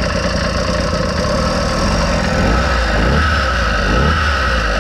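100cc two-stroke engine on a mountain bike running steadily, its note swelling briefly twice past the middle as the revs pick up.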